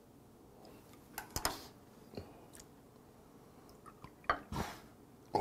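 Soft, scattered clicks and handling sounds of food being wrapped by hand. About four seconds in, a soju bottle knocks against a small glass and liquor is briefly poured.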